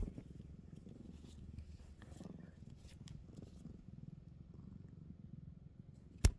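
Young cat purring close up, a steady low rumble. A single sharp knock near the end is the loudest sound.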